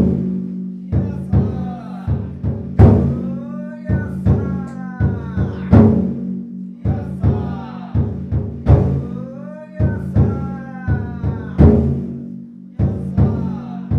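Large taiko drum mounted in a Nada Kenka Matsuri yatai float, beaten by a drummer seated inside it. Heavy booming strikes come about every three seconds, with lighter beats between, each ringing on in the wooden storehouse.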